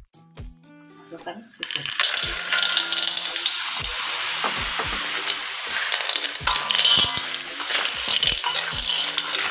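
Siput cungkil snails in their shells hitting hot oil and spice paste in a wok: a loud, steady frying sizzle sets in suddenly about a second and a half in and runs on while the snails are stirred with a spatula.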